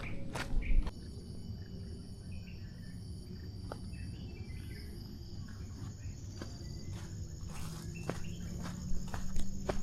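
Insects trilling steadily at a high pitch, with a second high call pulsing in short repeated notes for several seconds, over a low rumble. A few footsteps sound in the first second and again near the end.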